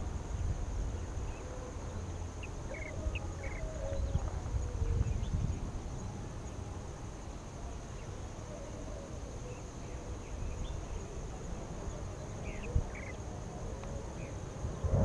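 Outdoor hillside ambience: a steady high drone of insects such as crickets, over a low rumble of wind on the microphone, with a few short high chirps.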